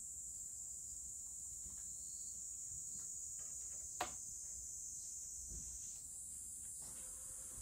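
Steady high-pitched insect chorus, with faint scattered ticks and one sharp click about four seconds in.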